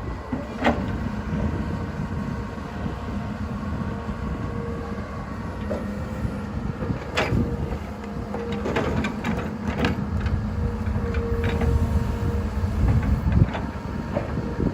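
Excavator's diesel engine running steadily at work, with several sharp knocks from the machine as it digs and loads.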